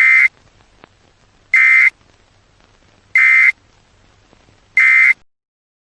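Four short, buzzy electronic alert beeps, evenly spaced about a second and a half apart, marking the end of a synthesized emergency alert message.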